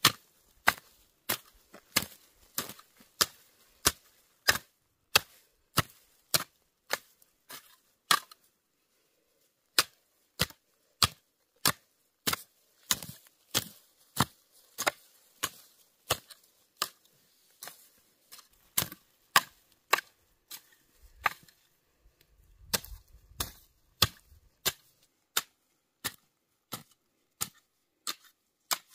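Hand hoe chopping repeatedly into dry, hard soil: sharp blade strikes in a steady rhythm of about two a second, with a short pause about eight seconds in. The soil is being broken up for planting corn.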